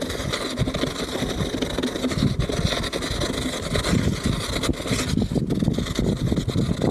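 Wind rushing over an action camera's microphone, mixed with the tyre noise of a mountain bike rolling on asphalt: a steady, rough rush with no let-up.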